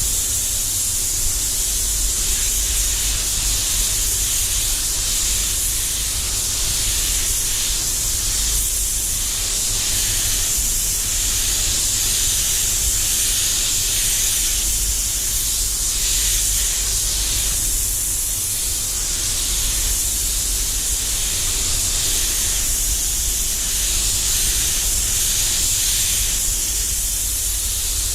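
Devilbiss DV1 air spray gun spraying metallic base coat: a steady, hard hiss of compressed air and atomised paint. It swells and eases slightly as the gun sweeps across the panel, over a constant low rumble.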